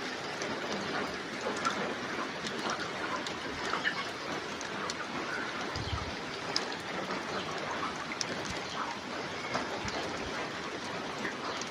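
A large flock of chickens in a poultry house: a dense, steady bed of many soft chirps and clucks with scattered clicks over a constant hiss, and one brief low thump about halfway through.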